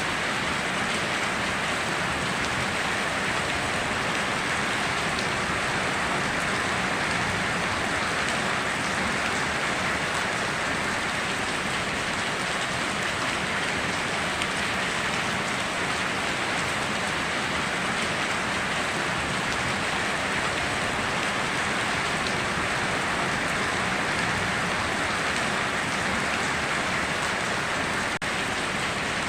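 Rainstorm: a steady, even hiss of heavy rain falling on surfaces.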